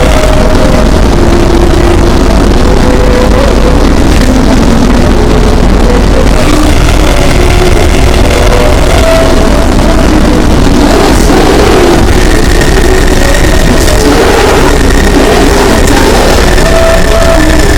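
Fan-made Emergency Alert System alarm, blown out to extreme loudness and heavily distorted: a constant clipped wall of harsh noise with steady tones stepping between pitches every second or two. A higher tone joins about two-thirds of the way in.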